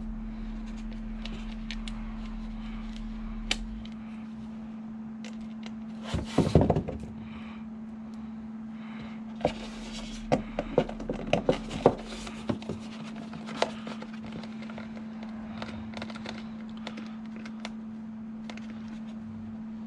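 Small clicks, taps and knocks of a screwdriver and small plastic parts being handled while screws are driven to fasten a control horn to an RC jet's horizontal stabilizer. There is a cluster of knocks about six seconds in and a run of sharp clicks between about ten and twelve seconds in, over a steady low hum.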